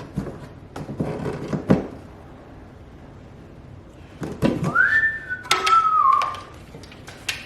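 A person whistling two short notes, the first sliding up and holding, the second a little lower and sliding slightly down. Scattered knocks and clicks, from tools being handled, come before and after the notes.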